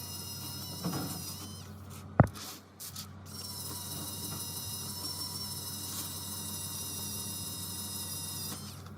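Steady high electrical whine with a low hum from running bench equipment; a single sharp click about two seconds in, after which the whine cuts out for about a second and then resumes.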